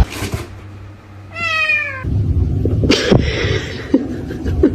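A domestic cat meows once, a single call falling in pitch, about a second and a half in. Then comes a louder stretch of low noise with scattered knocks and a brief hiss.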